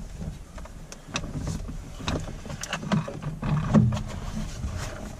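Plastic interior trim of a Toyota Tacoma's shifter console being handled and shifted, with a run of scattered clicks and rustling rubbing.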